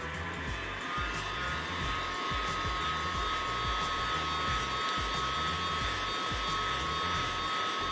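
Heat gun blowing steadily with a faint whine, used to soften the adhesive holding a smartphone's glued back cover. Background music plays underneath.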